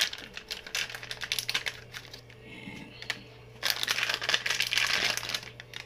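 Thin plastic food packaging crinkling as a bag is handled and pulled open by hand, a dense crackle that grows loudest a little past halfway through.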